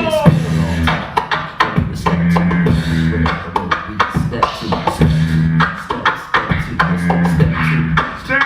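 Live vocal beatboxing by a beatbox group: a fast pattern of mouth-made drum hits over a held, hummed bass note that repeats every second or two.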